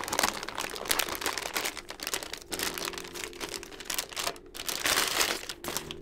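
Anti-static plastic bag crinkling and crackling as it is handled and a motherboard is pulled out of it, a dense run of sharp crackles.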